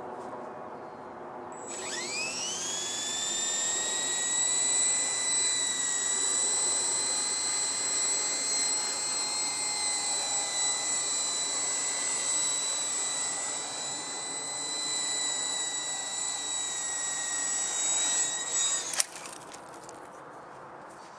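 Esky King 3 electric RC helicopter's motor and rotor spooling up with a quickly rising whine about two seconds in, then running at a steady high whine for about seventeen seconds. It cuts off with a sharp clack near the end.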